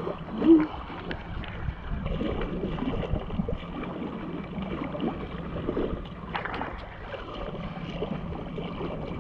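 Shallow seawater sloshing and splashing around the legs of people wading through it, an irregular run of small splashes.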